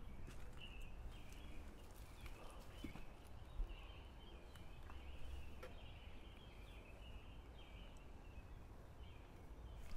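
Faint outdoor ambience: insects chirring in a steady, pulsing high chorus over a low rumble, with a single soft thump about three and a half seconds in.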